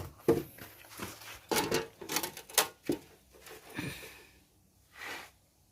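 A run of irregular taps, clicks and scrapes from hard objects being handled, densest in the middle, with a longer scrape near the end.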